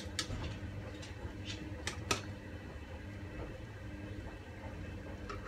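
A spoon clicking against a plastic jug as coconut milk is spooned into a cooking pot: a few light clicks, two of them about two seconds in, over a steady low hum.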